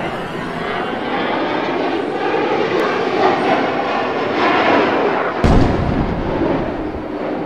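Jet aircraft noise rising in level, with one sudden deep boom about five and a half seconds in, then fading near the end.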